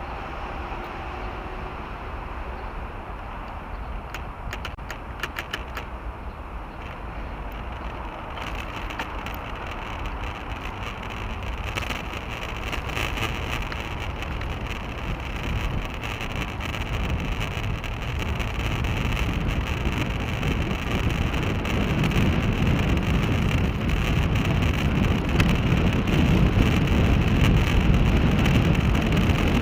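Wind buffeting a bicycle-mounted action camera's microphone over steady tyre and road noise, growing steadily louder. A short run of light clicks comes about four to seven seconds in.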